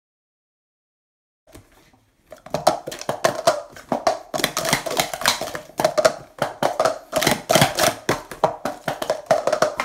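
Speed Stacks plastic sport-stacking cups clattering rapidly on a stacking mat as two stackers run a doubles cycle, a dense stream of quick clacks as the cups are stacked up and collapsed down. The clacking starts about two seconds in, after a stretch of silence.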